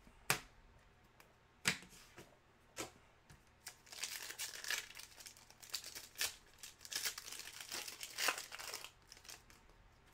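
A few light clicks as cards are set down, then, from about four seconds in, the plastic-foil wrapper of a Panini Contenders basketball card pack being torn open and crinkled.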